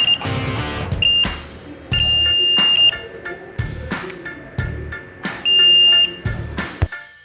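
Piezo buzzer of an Arduino ultrasonic-sensor security alarm sounding a steady high tone in irregular beeps, some short and some about a second long, four times. Background music with a steady beat plays throughout.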